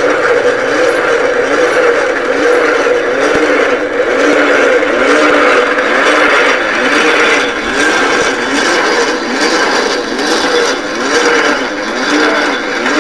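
Hand-cranked rope-twisting machine running, its gear head whirring and grinding as it twists the strands into rope, with a rhythmic rise and fall in the sound. It starts suddenly and runs loud and steady.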